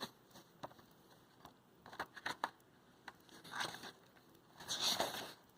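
Quiet paper handling as a book's pages are turned: a few small clicks and taps, then two brief rustles of paper about three and a half and five seconds in.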